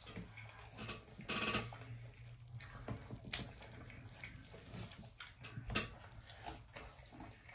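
Wet chewing and lip-smacking from eating saucy barbecue pork ribs, with irregular short smacks and clicks and one louder wet smack about a second and a half in.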